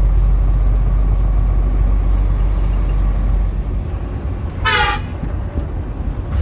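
Oil tanker truck's engine rumbling low and steady from inside the cab, the deepest rumble easing a few seconds in. One short horn blast sounds a little under five seconds in.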